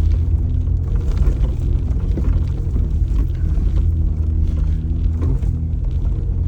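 Off-road vehicle's engine running under load with a steady low rumble, with frequent knocks and rattles as it works over rough trail.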